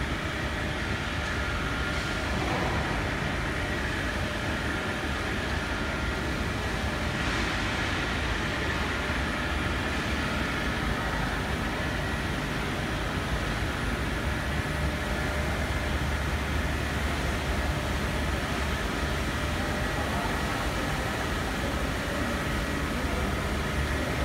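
Plastic sheet extrusion line running: a steady machine hum with a strong low drone and a few faint high whining tones.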